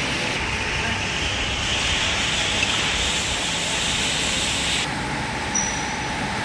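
Steady railway-workshop machinery noise with a loud hiss that rises slightly in pitch and then stops abruptly about five seconds in.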